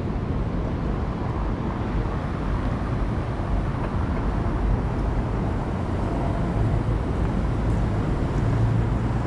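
Steady city-street traffic noise: a continuous low rumble with an even hiss over it and no distinct events.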